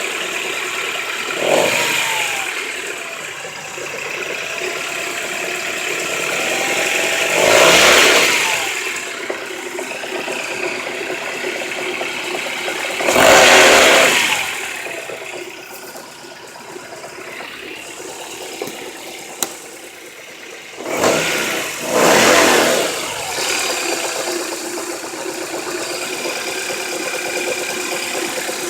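Honda H22 2.2-litre four-cylinder engine idling and being revved in several short blips. The uploader presents the sound as that of bad rod bearings.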